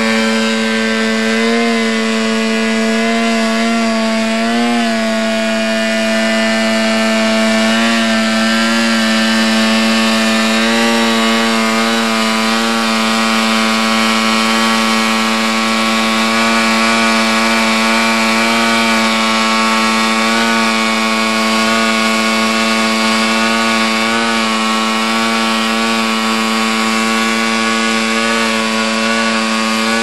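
The ducted-fan propulsion of a V-Bat 3.0 RC tail-sitter drone buzzing steadily as it hovers. Its pitch wavers slightly now and then as it holds position in gusty wind.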